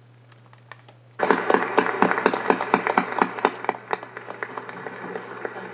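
A crowd applauding, breaking out suddenly about a second in and then gradually thinning.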